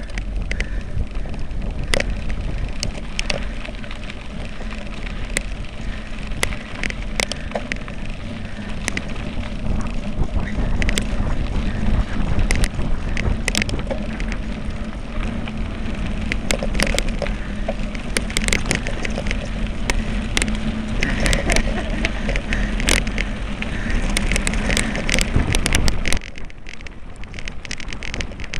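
Mountain bike rolling fast down a loose gravel track: a steady rumble of tyres on stones with wind on the microphone, and frequent sharp clicks and rattles as the bike hits bumps. The low rumble drops off suddenly near the end.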